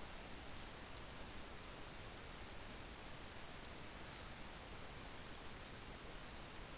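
Three faint computer mouse clicks, a couple of seconds apart, over a steady hiss.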